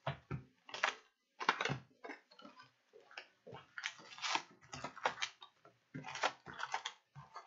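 Cardboard hobby box of hockey card packs being opened by hand and the wrapped packs lifted out: a run of short, irregular rustles, scrapes and crinkles of cardboard and pack wrappers.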